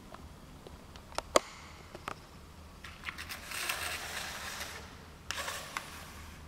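A few sharp clicks, then two bursts of whirring from a toy car's small electric motor and gears, the second shorter. The motor is switched on through a relay by an infrared obstacle sensor, here triggered by a hand held in front of it.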